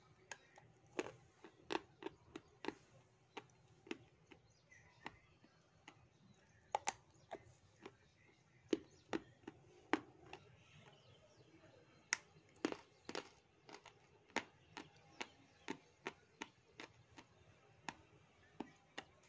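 Dry butter grey clay being bitten and chewed close to the microphone: sharp crisp crunches at an uneven pace, one to three a second.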